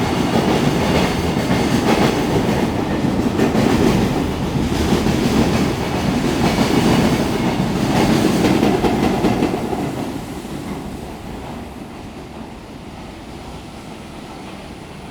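Freight train passing, its wagon wheels clattering over the rail joints in a steady clickety-clack. About ten seconds in, the noise drops away as the end of the train goes by and the sound recedes.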